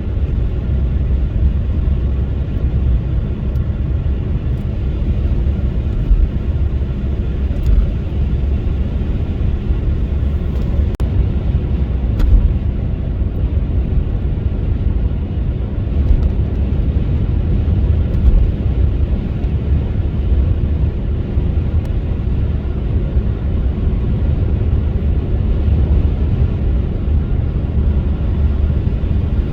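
A car driving, with a steady, deep drone of engine and road noise that is heaviest in the low end and does not change much throughout.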